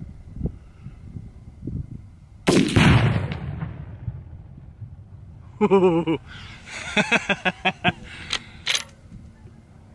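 A 6.5 Creedmoor rifle shot about two and a half seconds in, with the Tannerite blast in the safe arriving almost on top of it, making one loud report with a rolling tail of about a second and a half. A man's excited shout and laughter follow a few seconds later.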